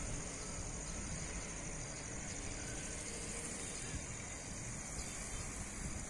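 Steady, high-pitched insect chorus, continuous and evenly pulsing, over a low background rumble.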